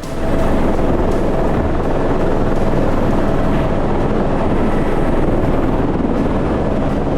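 Rescue helicopter hovering low, its rotor and engine making a loud, steady noise that starts abruptly and holds evenly.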